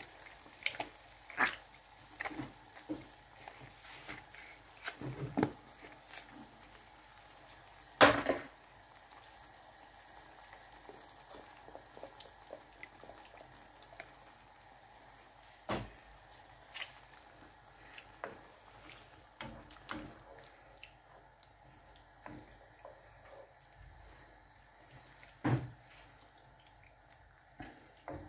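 Mushroom cream sauce heating in a frying pan, with scattered pops and drips of bubbling liquid. A sharp knock about eight seconds in is the loudest sound, and there are a few fainter knocks.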